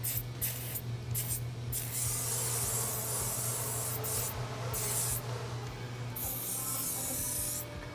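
Aerosol spray can of cleaner hissing in a series of bursts. First come a few short squirts, then longer sprays of one and a half to two seconds, as the cleaner is sprayed onto a fork cartridge.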